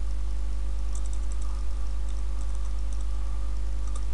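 Computer keyboard typing: scattered light keystrokes in two or three short runs, over a steady low electrical hum.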